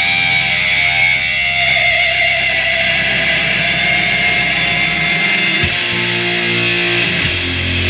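Heavy rock band playing live: sustained, distorted electric guitar chords over bass, with the low notes changing about five and a half seconds in.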